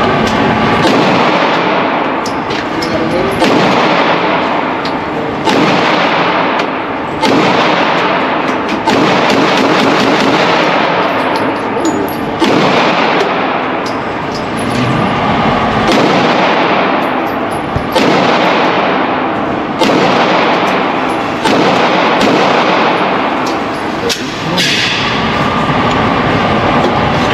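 Airsoft Glock 45 replica pistol firing single shots, one about every one and a half to two seconds, each with a fading tail.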